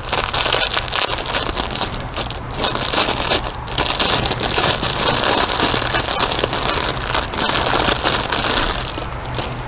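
Clear plastic bag crinkling and crackling as it is handled and pulled open, stopping near the end.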